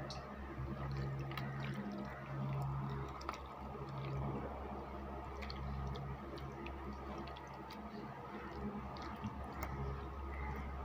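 Wet squelching and squishing of a bare hand kneading small anchovies into a thick, wet masala paste in a steel bowl, with small clicks scattered through. A steady low hum runs underneath.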